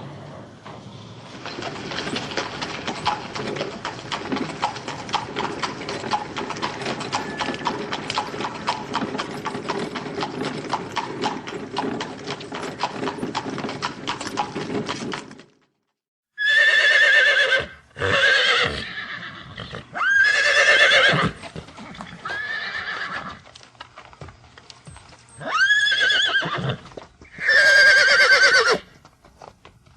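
Horse hooves beating in a rapid clatter of many quick strikes for about fifteen seconds. After a brief break come about six horse whinnies, each about a second long, with a quavering pitch.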